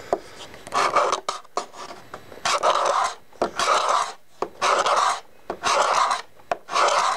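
Curved high-speed-steel hand scraper with a turned burr shaving boxwood deck planking in about six short rasping strokes, roughly one a second. The strokes take down high spots to level and smooth the planks.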